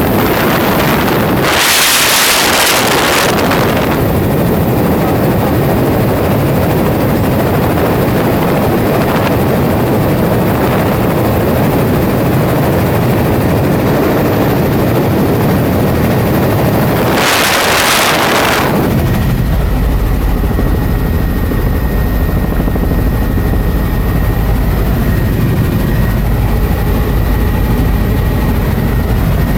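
Loud, steady helicopter cabin noise, the engine and rotor heard from inside the cabin in flight. Brief bursts of rushing wind noise come about two seconds in and again about halfway through. After that a deeper low rumble comes in and stays.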